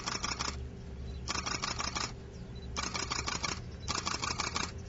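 Camera shutters firing in rapid bursts: four short runs of quick clicks about a second apart.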